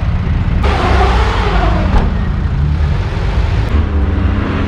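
Off-road vehicle engine running under load with a heavy low rumble. About half a second in, a rush of noise joins it for a second or so while the engine note rises and falls.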